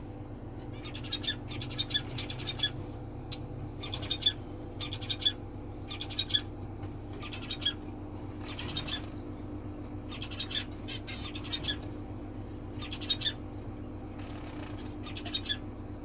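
Small aviary finches chirping: short high calls coming in quick clusters every half second or so, over a steady low hum. A brief flutter of wings comes about halfway through and again near the end.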